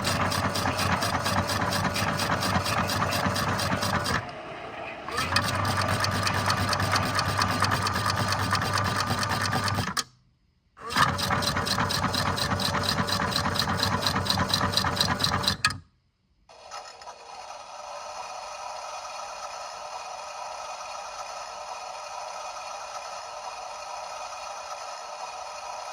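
A machine running with a fast, even rattle that cuts off abruptly twice. From about sixteen seconds in, a steadier, quieter hum replaces it.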